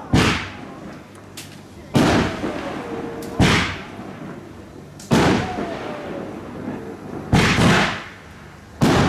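Aerial firework shells bursting: six loud bangs roughly one and a half to two seconds apart, each trailing off in a crackling, echoing tail. Faint falling whistles glide down between some of the bursts.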